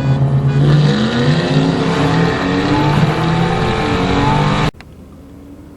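High-performance V8 cars accelerating hard in a drag race: the engines hold steady at first, then rev up repeatedly with the pitch stepping through gear changes. Near the end the sound cuts off abruptly.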